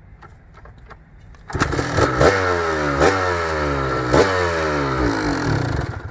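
1989 Kawasaki KDX200's two-stroke single-cylinder engine starting from cold: it fires about a second and a half in, is blipped three times with the revs falling back after each, and cuts out near the end. The rider puts the stall down to the fuel: the tap turned off and the tank low.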